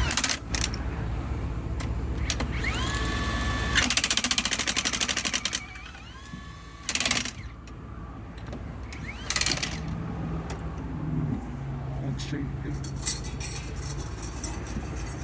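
Impact wrench on the RV's wheel lug nuts, running in several short bursts: each starts with a rising whine and goes into rapid hammering. A low steady hum runs underneath.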